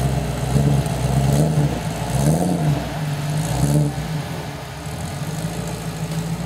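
Off-road trials 4x4's engine revving up and dropping back in repeated swells as it works up a steep, rutted slope. After about four seconds it settles to a steadier note.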